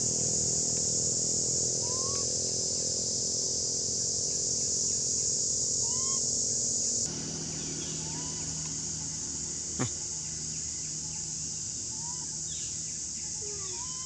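Outdoor woodland ambience: a steady high hiss that drops a little in level about halfway, with short rising chirps every second or two and a single sharp click about ten seconds in.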